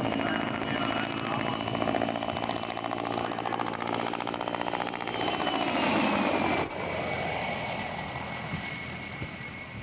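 Mil Mi-2 helicopter flying a display pass: the high whine of its twin turboshaft engines over the beat of the main rotor. The whine falls in pitch as the helicopter passes, the loudest moment a little past the middle. The level then drops suddenly and the sound fades as it moves away.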